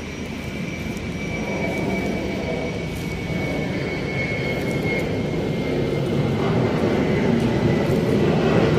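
Steady engine rumble with a faint high whine, growing slowly louder: an aircraft towing tractor moving an airliner across the apron.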